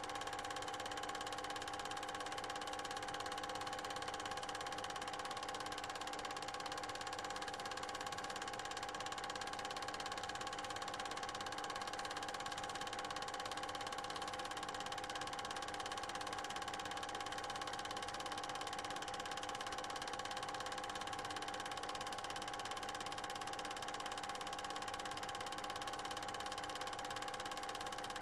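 Steady hum of several held tones over an even hiss, unchanging throughout, even where the picture cuts from the boat's cabin to open water. This is background noise from playing back or transferring silent 8mm cine film, not sound from the filmed scene.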